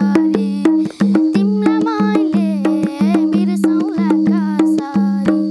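A boy sings a Nepali folk song while playing a madal, a two-headed barrel hand drum, with quick, even strokes. The song and drumming stop right at the end.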